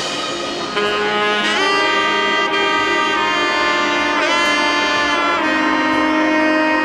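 Background music: a lead instrument plays long held notes, sliding between pitches about a second and a half in and again about four seconds in.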